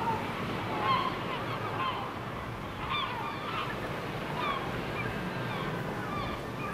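A flock of waterbirds calling: many short, overlapping calls over a steady background hiss.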